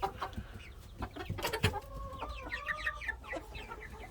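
A flock of chickens clucking and chirping, with one drawn-out call about two seconds in and a couple of short knocks just before it.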